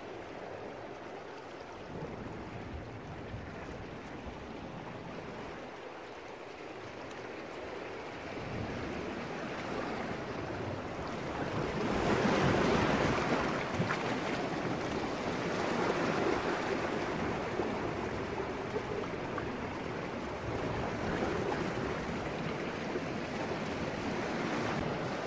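Sea waves washing and splashing against jagged coastal rocks, a steady rush that swells louder about halfway through.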